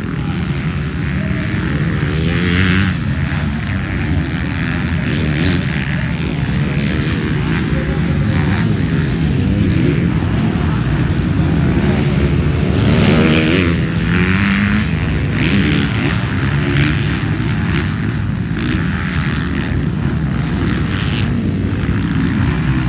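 Several MX2 motocross bikes racing on a dirt track, their engines revving up and down as riders accelerate through the corners and jumps, loudest about thirteen seconds in.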